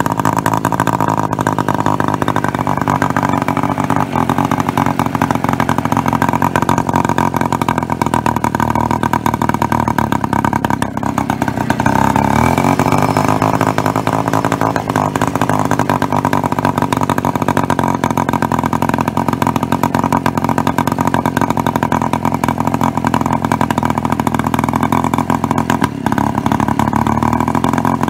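Jawa Babetta 210 moped's 50 cc two-stroke single-cylinder engine running through an Akrapovič-badged silencer, revved a little above idle. The revs hold steady, with a dip and then a rise in pitch about twelve seconds in before settling again.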